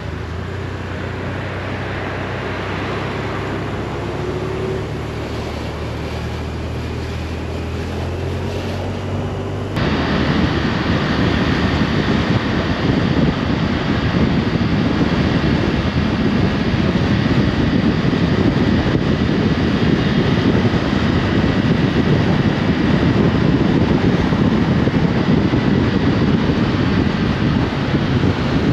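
Motorcycle engine running at a steady pitch while riding. About ten seconds in, the sound switches abruptly to a louder rush of wind on the microphone, with the engine underneath.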